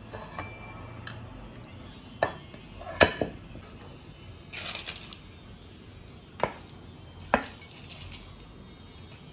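Steel ladle clinking against a glass mixing bowl, about five sharp knocks, the loudest a few seconds in, with a brief wet scrape in the middle as the glutinous rice and pig blood mixture is scooped up.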